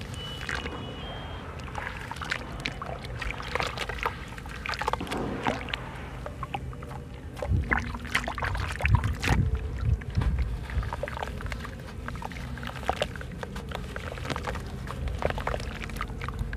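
Hands crumbling and squeezing a soaked sand-cement block in a basin of water: crunching and gritty crackles with water dripping and sloshing, and louder splashes about halfway through.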